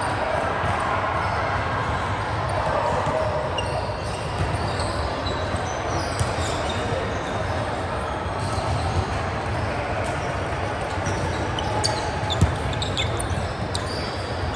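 Volleyball being played: a handful of sharp ball hits over a steady background of court noise, the loudest hit about twelve seconds in.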